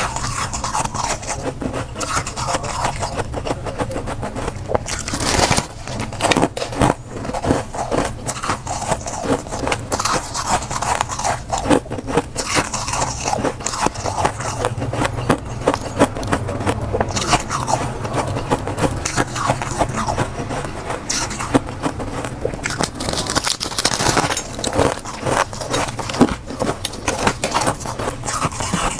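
Crisp crunching and crackling of soft blue-tinted freezer frost being bitten, chewed and pulled apart by hand, a dense run of small crunches throughout.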